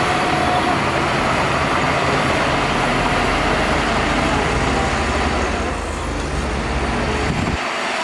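Crawler bulldozer's diesel engine running under load as it pushes dirt with its blade, a dense steady rumble. The deep rumble cuts off abruptly near the end.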